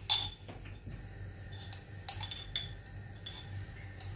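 Metal spoon clinking against a small pan and a glass spice jar as mustard seeds are spooned in: a few sharp clinks, the loudest right at the start.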